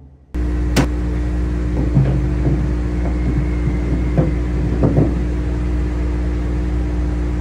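Angle grinder running steadily, pressed against the steel wall of a CAT 637 scraper apron, with a sharp knock about a second in and a few lighter knocks after.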